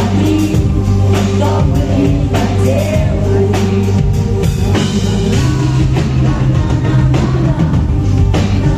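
Live rock band playing with a woman singing: a sung melody over drums, bass and guitar.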